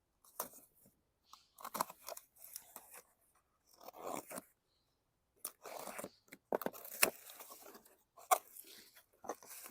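A small box of a parts kit being opened and handled: scattered bursts of tearing and crinkling packaging, with a couple of sharp clicks near the end.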